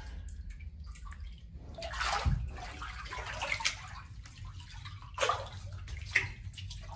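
Water sloshing and splashing in the salt water of a flotation tank as someone shifts in it, in irregular bursts: a longer one about two seconds in and short splashes about five and six seconds in.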